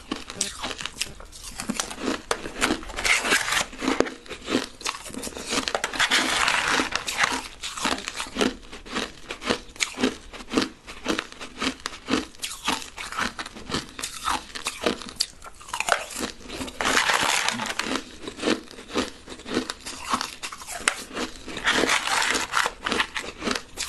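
Crushed ice being bitten and chewed close to the microphone, a rapid run of small cracks and crunches. Three louder, denser spells of crunching come about a quarter of the way in, about two-thirds of the way in and near the end.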